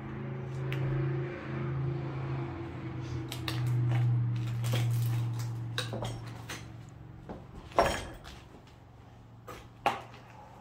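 A car passing outside: a steady engine hum that swells to its loudest about four seconds in and fades away by about seven seconds. Scattered sharp clicks and clinks, the sharpest about eight and ten seconds in.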